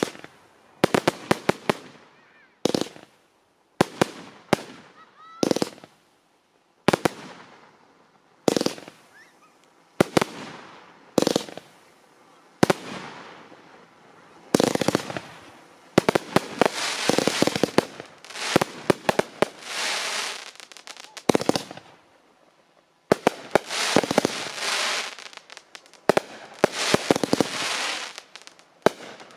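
Fireworks display: single sharp bangs about every second or so. About halfway through they give way to long stretches of rapid, dense popping and crackling, broken by a short lull.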